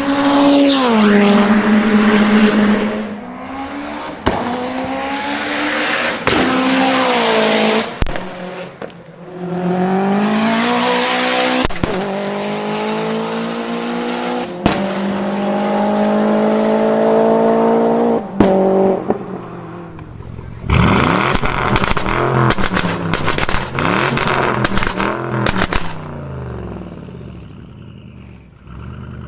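A performance car engine revving hard and climbing in pitch several times, each climb ending in a sudden drop at a gear change, with single sharp exhaust pops between. Later comes a rapid run of exhaust pops and crackles lasting several seconds as the revs fall.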